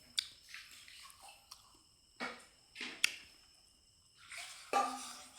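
Close-up eating sounds from a person: scattered mouth clicks and smacks, a few of them sharp, with short pauses between.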